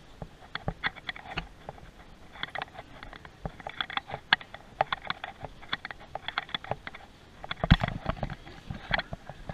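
Footsteps and light clicks and taps on a wooden shop floor, irregular, with a louder thump about eight seconds in.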